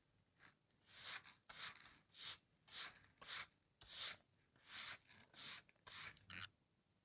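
Stiff-bristled hand brush sweeping dried salt crystals off a painting's surface: a quick run of about ten scratchy strokes, roughly two a second, starting about a second in.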